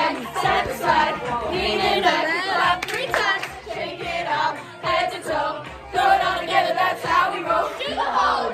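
A group of teenagers singing and shouting along to pop music, with some hand clapping.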